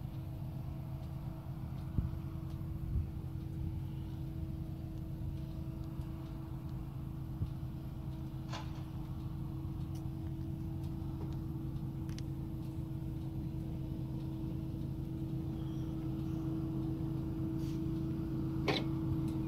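Steady hum of an idling engine, holding one tone over a low rumble and growing slightly louder, with a few faint clicks.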